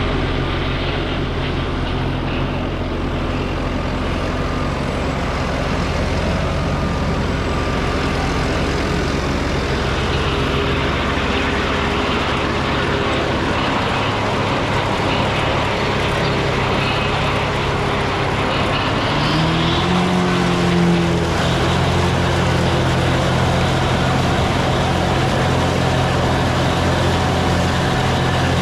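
Tractor engine running steadily while mowing alfalfa. The engine note steps up a little over two-thirds of the way through and holds there.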